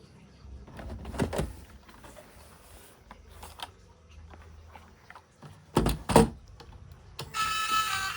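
Scattered knocks and scrapes of things being handled, loudest in two short clusters about a second in and about six seconds in. Music with plucked tones starts near the end.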